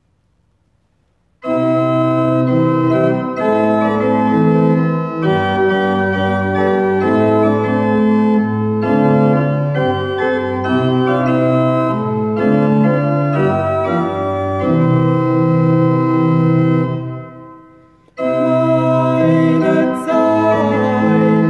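Pipe organ playing a hymn introduction in sustained chords over a stepping bass line. It starts about a second and a half in, dies away briefly near the end, then begins the next phrase.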